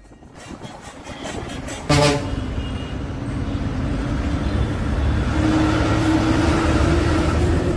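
Bus engine and road noise heard from a window seat on a moving bus, with a single short horn toot about two seconds in. The engine note rises a little later on as the bus picks up speed.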